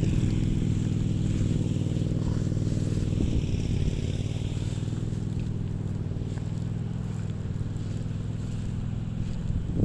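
Small engine running steadily at a constant speed, a low even drone that eases off a little in level.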